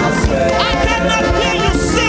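Live gospel worship band music with a steady drum beat under sustained chords and short melodic runs.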